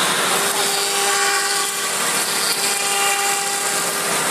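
CNC router with an HSD 9 kW spindle running at a steady speed: an even whine with overtones over a steady hiss of machine noise.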